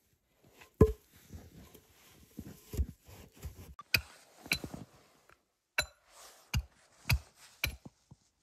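Wooden logs being handled in snow: a heavy thud as a log is set down, then a run of sharp wooden knocks, with soft crunching and scuffing between them.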